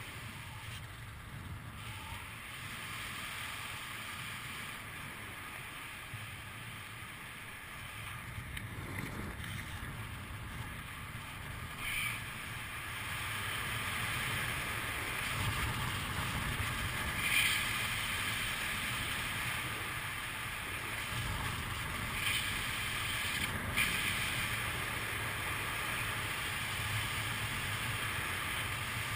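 Airflow rushing over a helmet camera's microphone during a parachute descent, a steady wind hiss with a few brief louder gusts.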